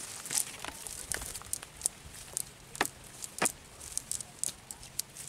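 A cast net being handled and shaken to free the catch: the mesh rustles, with irregular sharp clicks and crackles.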